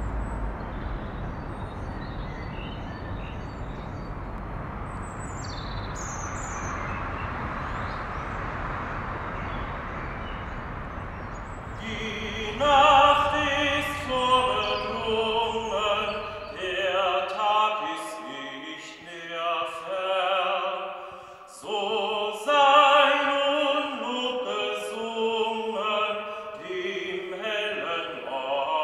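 Steady outdoor noise like distant traffic, with a few short bird chirps about six seconds in. From about twelve seconds in, a singing voice takes over with long held notes and vibrato, echoing in a church.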